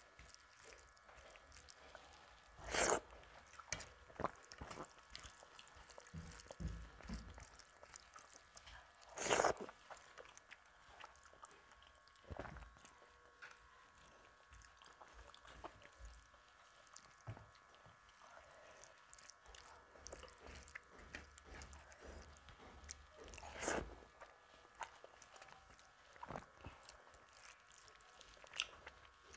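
Close-miked eating by hand: fingers mixing rice with dal and curry, and wet chewing and mouth clicks, with three louder short bursts about 3, 9 and 24 seconds in.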